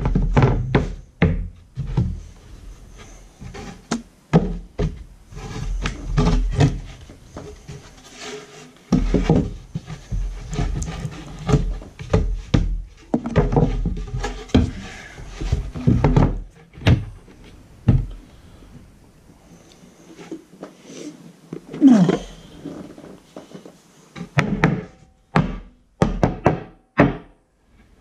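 A sheet of blockboard being lifted, shifted and laid back down over floor joists while a replacement floor panel is test-fitted: repeated wooden thunks and knocks, with a run of sharper knocks near the end.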